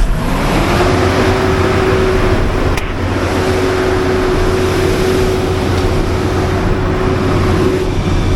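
A 400 kW Generac natural-gas standby generator running just after start-up. A whine rises in pitch over about the first second as the engine comes up to speed, then holds steady over the dense engine noise. A single faint click falls about three seconds in.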